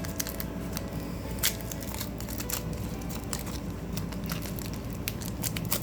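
Crinkling of foil booster-pack wrappers and handling of trading cards, with many small, irregular clicks and snaps.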